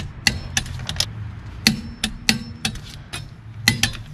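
Torque wrench tightening a car's wheel lug nuts: a series of sharp metallic clicks at uneven intervals, with three in quick succession near the end.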